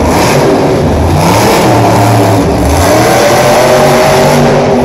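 Monster truck's supercharged V8 revving up and down as the truck drives across the dirt floor, loud throughout.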